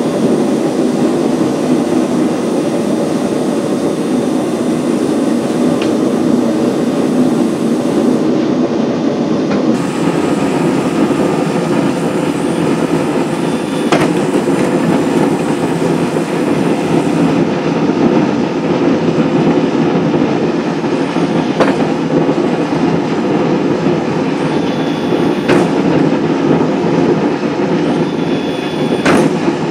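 Hydraulic forging press running steadily as its dies squeeze a red-hot steel sword blade, with a few sharp clicks.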